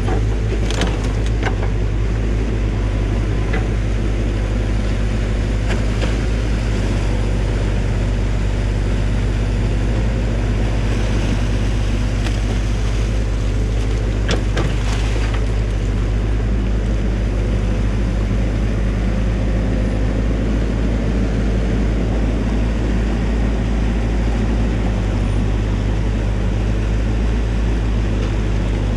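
New Holland mini excavator's diesel engine running steadily under load as its bucket tears into a beaver dam, with a few short knocks and scrapes of the bucket on mud and branches. Water rushes through the breach beneath the engine noise.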